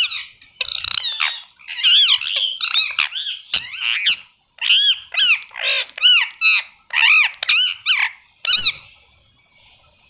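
Indian ringneck parakeet giving a quick run of short, high-pitched calls, each rising and falling in pitch, falling silent near the end.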